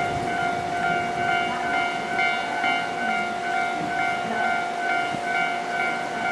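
Electronic railway warning tones: a steady tone with higher beeps repeating about twice a second.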